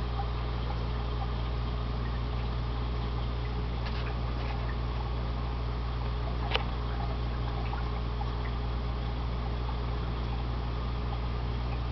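Aquarium equipment running: a steady hum with water trickling and bubbling. A single sharp click sounds about six and a half seconds in.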